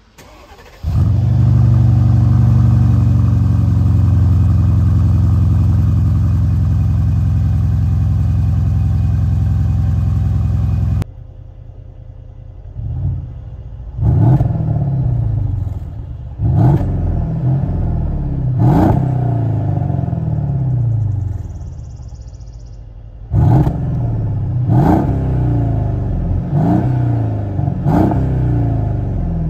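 Mercedes-Benz M278 4.7-litre twin-turbo V8 on its stock exhaust, starting from cold about a second in and then idling steadily. After a cut, the fully warm engine idles more quietly and is revved about eight times, each rev rising and falling back to idle.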